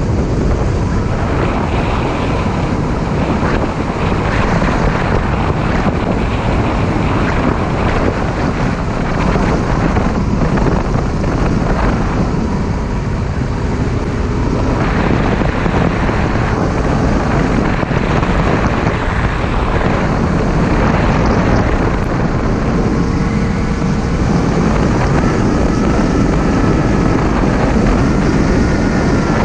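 Steady rush of wind over the microphone from riding at speed on a 2015 Yamaha FJ-09, with the motorcycle's three-cylinder engine running underneath.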